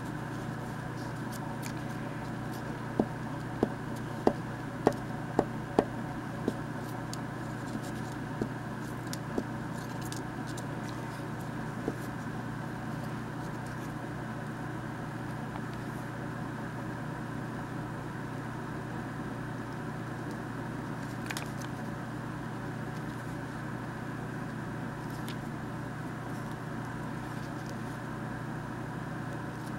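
Hands gluing and pressing paper scraps with a glue stick on a cutting mat: a run of about seven light taps roughly every half second a few seconds in, then a few scattered taps, over a steady background hum.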